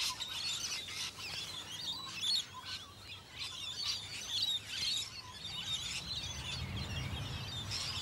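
A flock of rainbow lorikeets chattering: a busy stream of short, high chirps and squeaks.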